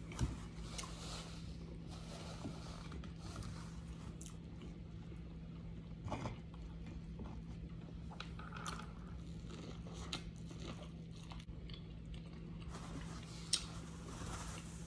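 Close-miked chewing and biting of food, with soft wet mouth sounds and a few sharper clicks, the loudest near the end. A steady low hum sits underneath.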